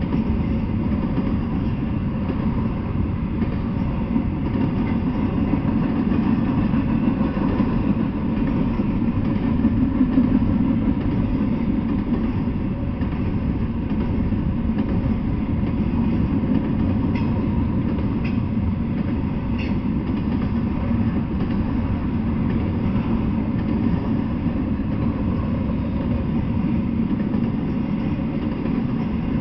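Double-stack intermodal freight train rolling past: a steady rumble of its container-laden well cars' wheels on the rails.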